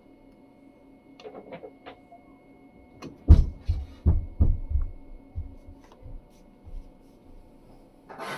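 Filament dryer's fan and heater running with a faint steady hum, while a few light button clicks come about a second in. Several dull low thumps follow about three to five seconds in as a hand moves off the unit; they are the loudest sounds.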